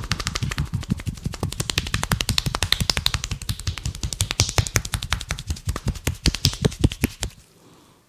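Barber's hands striking rapidly in a percussive head massage, many slaps a second at an even rhythm, stopping abruptly about seven seconds in.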